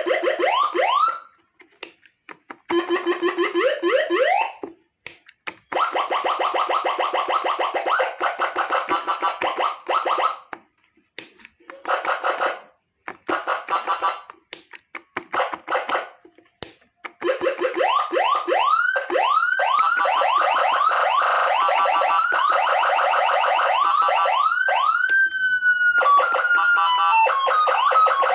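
Electronic 12-sound triple-tone siren, several tones sounding at once, switching through its patterns. For the first part it gives short bursts of rising wails and fast warbles with breaks between. From about two-thirds in it runs continuously, its wails speeding into a rapid yelp, then sweeping up and holding, then stepping between tones near the end.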